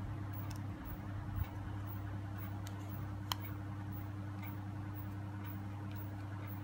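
Hand crocheting with a metal crochet hook: faint scattered light ticks as the hook and fingers work the yarn, with one sharper tick about three seconds in, over a steady low hum.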